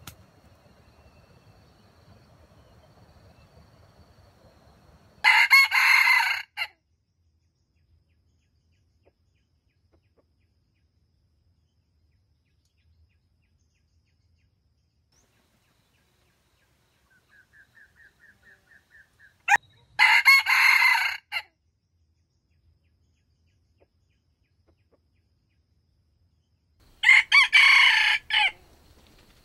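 Red junglefowl rooster crowing three times, each crow short, about a second and a half. A faint quick run of soft notes comes shortly before the second crow.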